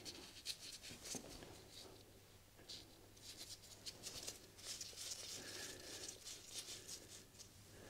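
Faint rustling and light scattered clicks of nitrile-gloved hands working the oil filter cap loose on the underside of a motorcycle engine's crankcase.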